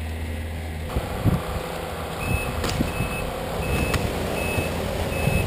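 Short high electronic beeps repeating about every three-quarters of a second from the crashed RC plane's electronics, over wind buffeting the plane's on-board camera microphone and rustling in the cedar branches. A low steady hum stops about a second in.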